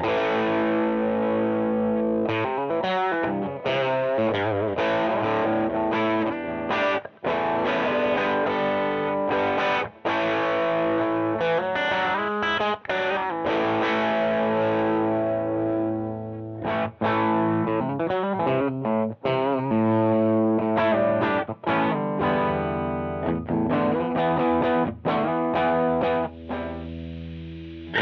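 Electric guitar played through a Joyo JF-22 Oxford Sound amp-sim pedal, distorted chords and riffs with a few short breaks. The mid control is pushed to the max, giving a real boxy tone.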